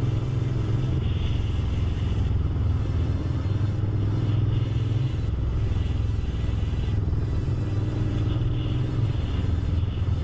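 Honda VTR1000's V-twin engine with an obnoxiously loud exhaust, a low, steady rumble at an even, low road speed, with no hard revving.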